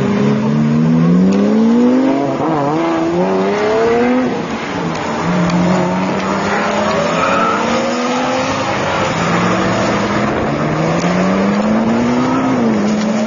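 Supercars accelerating hard away one after another, a Lamborghini Murciélago first: engines revving up in rising sweeps that drop back at each gear change, several times over.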